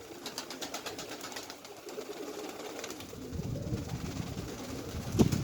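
Domestic pigeons cooing, with many faint clicks and rustles throughout and a single sharp knock about five seconds in.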